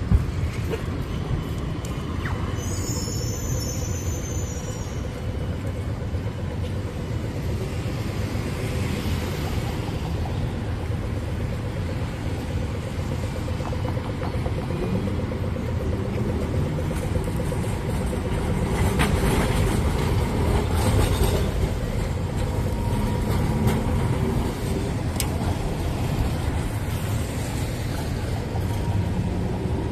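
Street traffic with trams passing: a steady rumble of road vehicles and tram wheels, with a brief cluster of high tones about three seconds in.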